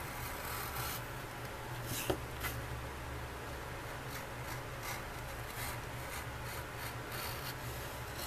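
Razor-sharp HSS M2 steel paring knife shaving thin strips off the edge of a leather block: a series of faint scraping strokes, with one sharp click about two seconds in.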